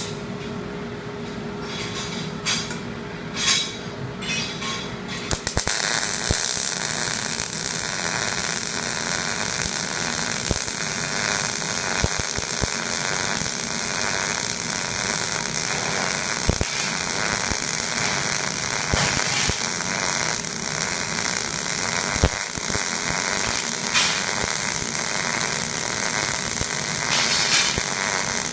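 Electric welding arc, a steady crackling hiss full of small pops that starts abruptly about five seconds in, after a few scrapes and taps.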